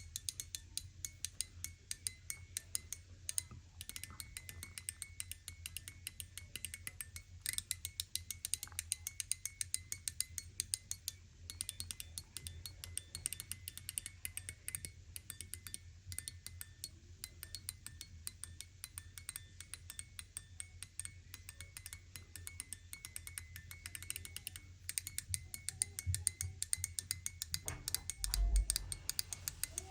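Mechanical EDC push-slider fidget toy worked in its rotating three-note mode: many sharp, closely spaced clicks, each with a faint tinkling ring.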